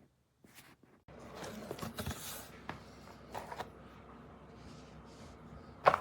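Handling noise: scattered rustling and light knocks, with a sharp click near the end.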